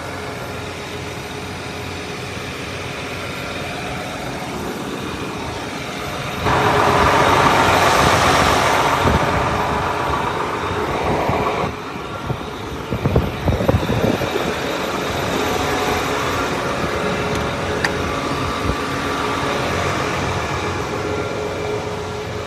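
John Deere 8RX 410 tractor's diesel engine running steadily at idle. A louder rushing noise comes in at about six seconds and drops away sharply just before twelve seconds. It is followed by a few seconds of irregular knocks and thumps.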